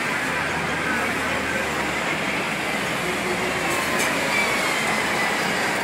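Hong Kong double-decker electric trams passing close by, a steady rumble and rattle of the cars running on their rails.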